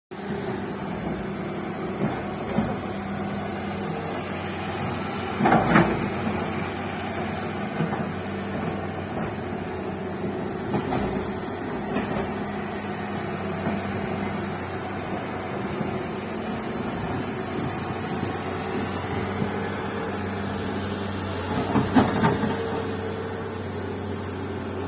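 Bulldozer's diesel engine running steadily, with a short cluster of loud knocks about five and a half seconds in and another near the end.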